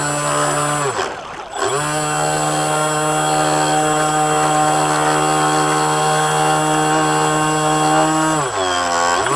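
Brushless electric motor of an RC model boat whining steadily with several pitched tones. About a second in the motor slows sharply, its pitch falling away, and speeds back up within about half a second; near the end it slows and speeds up again.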